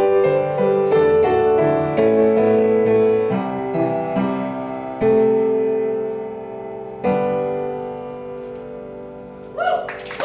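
Piano closing the song: a series of chords struck about a second apart, then a final chord about seven seconds in, left to ring and fade. A short rising call sounds near the end.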